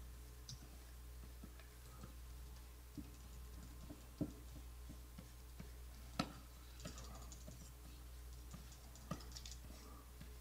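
Faint, irregular clicks and taps of computer keys and pen input over a steady low electrical hum; the sharpest clicks come about 4 and 6 seconds in.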